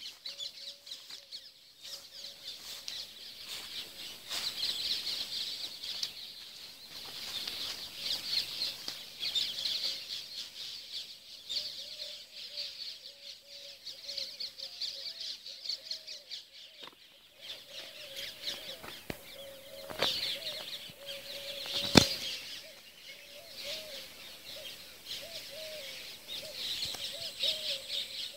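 Dense evening chorus of chirping birds and insects, swelling and fading, with a faint warbling call lower down. A single sharp click about twenty-two seconds in.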